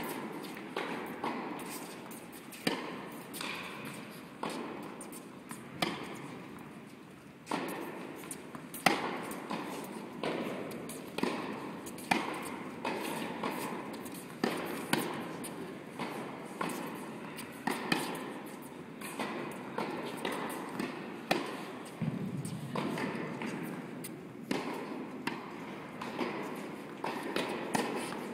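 Tennis balls struck by rackets and bouncing on a hard court during a baseline rally: sharp pops about once every second or so, each echoing in a large indoor hall.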